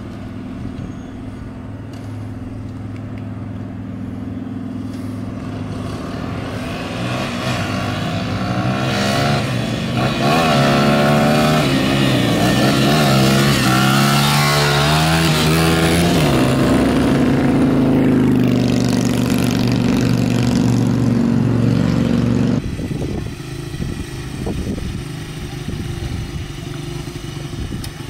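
Honda dirt bike engine growing louder as the bike approaches, revving up and down in pitch as it passes close, then running loud and steady before the level drops off abruptly about three-quarters of the way through.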